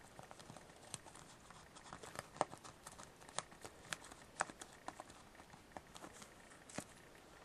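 Fingernail scratching the coating off a scratch-and-win trading card: faint, irregular little scrapes and clicks.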